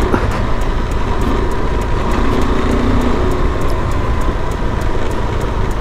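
KTM 390 Adventure's single-cylinder engine running at a steady cruise on a gravel track. A dense, even low rumble of wind and road noise sits under it.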